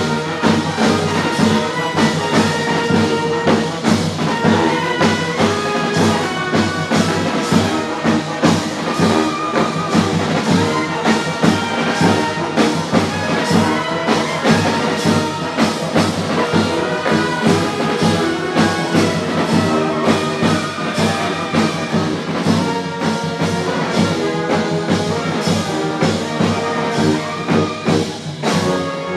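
Brass street band playing live: trumpets and trombones over drums keeping a steady beat. The music stops abruptly at the end.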